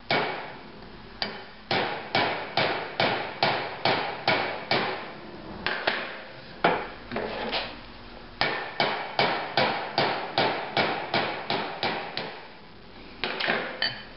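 Hammer striking a pin punch to drive the ground-off rivets out of a Briggs & Stratton flywheel's starter ring gear. Sharp taps come steadily, about two to three a second, in runs with short breaks.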